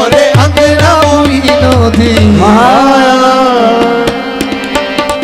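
Qawwali music: harmonium chords held under tabla, the bass drum's pitch-bending strokes for the first couple of seconds with sharp treble strikes throughout. A voice sings a rising, then held line in the middle, and the music grows quieter near the end.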